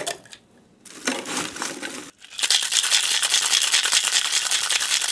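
Ice clattering as it is scooped into a glass mixing glass, then, about two and a half seconds in, ice rattling fast and loud inside a Boston shaker (metal tin over the mixing glass) as a cocktail is shaken with ice.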